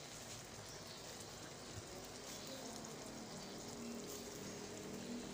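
Sliced potatoes in tomato purée and oil sizzling softly and steadily in a frying pan on the stove.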